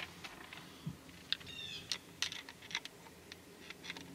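Scattered light clicks and ticks of a screwdriver and small screws being worked out of the plastic vapor separator cover on an outboard engine, with a brief high chirp about a second and a half in.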